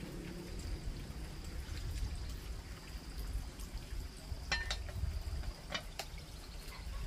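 Water being poured and splashing, with three sharp clicks in the second half.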